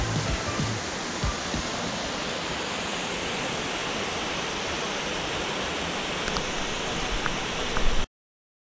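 Small mountain waterfall and stream rushing steadily over rocks, with a few low knocks just before the sound cuts off suddenly.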